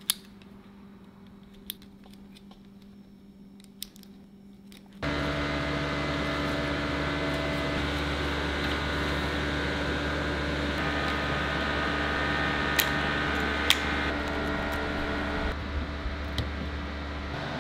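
Steady hum of an electric shop fan that cuts in abruptly about five seconds in after a quieter stretch of faint electrical hum, with a few small clicks from wire connectors being handled.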